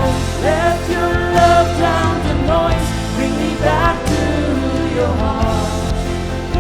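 Contemporary Christian worship song: a singing voice over steady instrumental backing.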